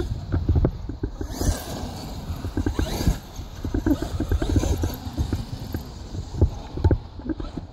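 Electric RC truck driving over rough ground: a rapid, irregular clatter of knocks and rattles over a low rumble, with a brief rising motor whine about a second and a half in.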